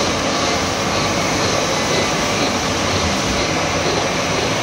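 Horizontal milling machine running steadily as a disc-shaped gear cutter on its arbor mills teeth into a bevel gear blank, with coolant flooding the cut.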